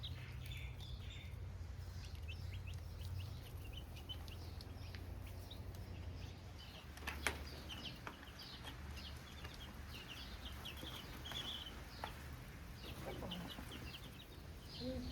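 Baby chicks cheeping: many short, high peeps scattered throughout, over a low steady hum, with a single sharp click about seven seconds in.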